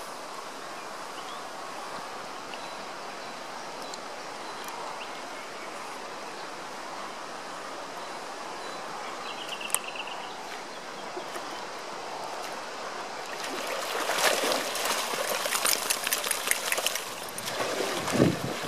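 Gentle, steady water noise at a river's edge, then from about 13 seconds in several seconds of loud splashing as a golden retriever wades and paddles in the shallows.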